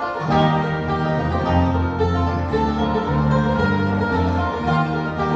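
Live bluegrass band playing: five-string banjo, fiddle, acoustic guitar, dobro and bass guitar, over a bass line that steps from note to note.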